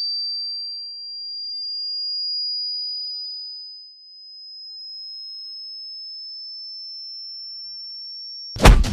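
A single high, pure ringing tone that creeps slowly upward in pitch and swells and fades in level: a tinnitus ear-ringing sound effect for a fighter dazed by a blow. Near the end it is cut off by a loud hit and percussive music.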